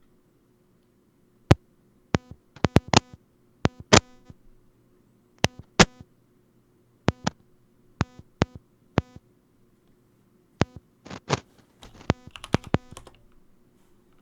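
Short, sharp electronic clicks and buzzy blips in irregular groups, like Morse code, coming through a voice-call headset line over a faint steady hum; the speakers liken them to Morse code.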